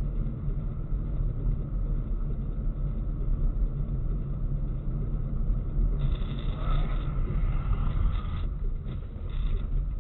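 Car on the move: a steady low rumble of engine and road noise. A brighter hiss joins about six seconds in and fades a couple of seconds later.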